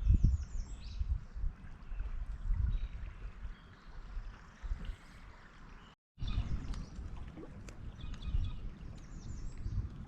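Water and a gusty low rumble of wind on the microphone around a drifting kayak, with a small bird singing short, falling chirps near the start and again near the end. The sound drops out completely for a moment about six seconds in.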